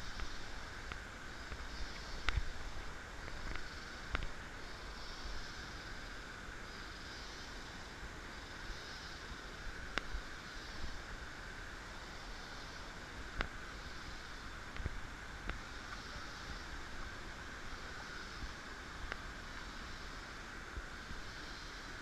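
Steady rush of a distant waterfall under a high pulsing chorus that repeats about once a second, with scattered clicks and knocks of footsteps and camera handling on a forest trail.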